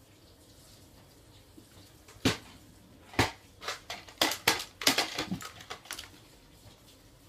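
A quick irregular string of sharp clacks and knocks: two loud single hits, then a denser cluster of about ten smaller knocks that dies away.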